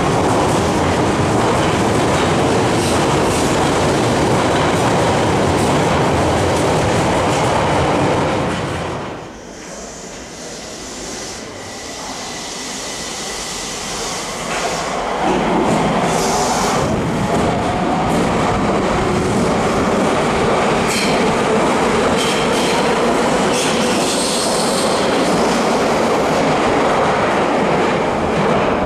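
Nagoya Municipal Subway Higashiyama Line trains in an underground station. For the first eight seconds or so a train runs loudly along the platform with steady wheel and motor noise. After a sudden drop, another train approaches, its motor whine and wheel noise building from about fifteen seconds in.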